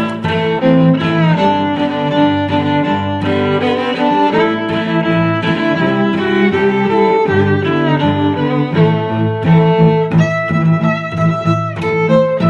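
Instrumental music on bowed strings, several sustained notes held together and changing about every second.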